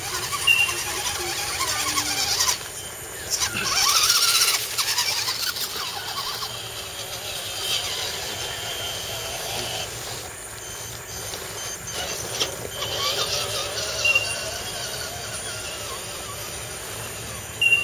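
Scale RC crawler trucks' small electric motors and geartrains whining as they crawl up a dirt slope, louder for a couple of seconds about four seconds in. A few short high squeaks stand out above them.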